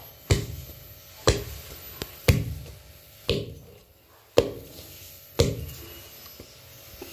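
Wooden pestle pounding a stiff dough of rice flour, grated coconut and palm sugar in a mortar to pack it firm: six heavy thuds, about one a second.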